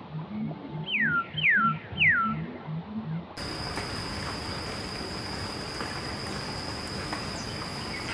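Wildlife ambience: a low, rhythmic pulsing animal call with three quick whistles from a bird, each falling in pitch. About three seconds in it cuts to a steady, high-pitched insect drone over hiss.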